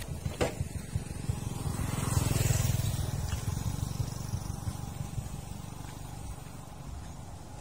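A vehicle on the move, with a steady low engine-and-road rumble. There is a brief click just after the start, and a swell of louder road noise about two seconds in that then eases off.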